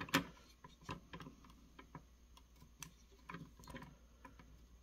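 Faint, irregular small clicks and taps from a soldering iron and desoldering wick working the joints of a capacitor on a circuit board, with one louder click near the start.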